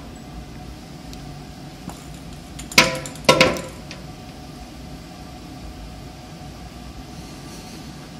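Aluminium tubes of a small tube-frame robot knocking against something hard twice, about half a second apart roughly three seconds in, each knock with a short metallic ring, over a steady low room hum.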